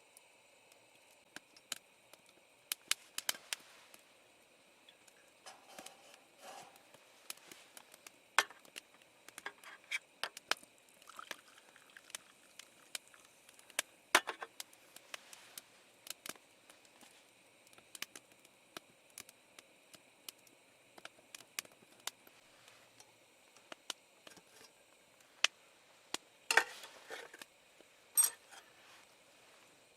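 Irregular light clicks, taps and short scrapes of small objects being handled, with a few sharper knocks, over a faint steady hum.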